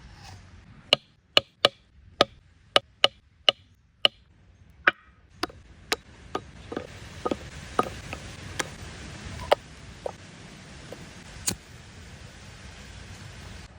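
A long run of sharp knocks or chopping strikes, quick and loud at first, then slower and softer. A steady hiss comes in about seven and a half seconds in and continues under the later strikes.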